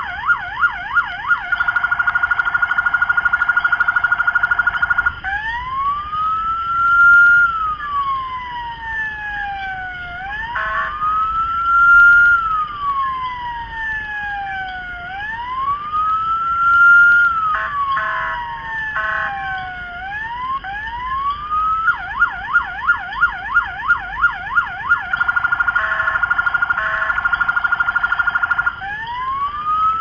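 Electronic police siren recording played from an MP3 player through small mini speakers on a model police truck. It goes from a fast yelp warble to a steady buzzing tone, then a slow wail that rises and falls about every five seconds. Near the end it switches back to yelp and the steady tone.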